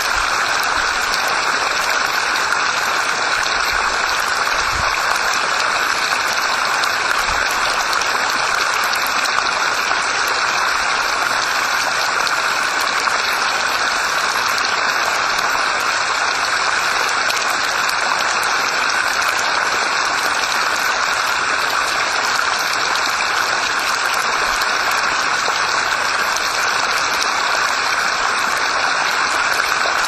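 A small mountain creek splashing down a short rocky drop. The water runs in a steady, even rush that does not change.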